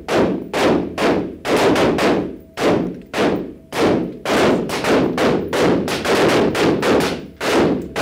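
Several AR-15-style carbines fired by a line of shooters, about two to three shots a second in an irregular, overlapping rhythm, each report echoing off the walls of an indoor range.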